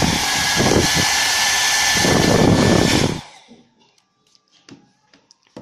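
A Nova NHP 8100 1200 W foldable hair dryer runs with a steady rush of air and a thin whine. It cuts off about three seconds in, leaving a few faint clicks.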